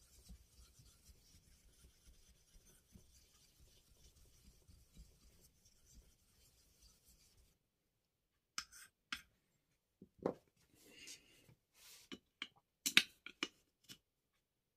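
A small stone rubbed in short strokes over the face of an Okunomon Tomae Koppa natural Japanese whetstone, a faint steady scratching. It stops about seven seconds in. After a brief pause comes a run of sharp clicks and knocks as the stones and the wooden stone holder are handled, the loudest about thirteen seconds in.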